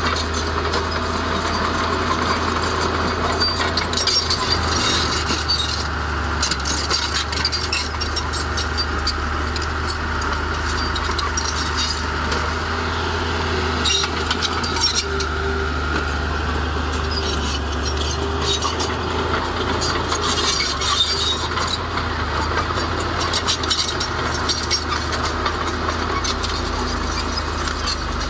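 Heavy diesel earthmoving machinery running steadily, with frequent clanking and rattling of metal and stone over the engine.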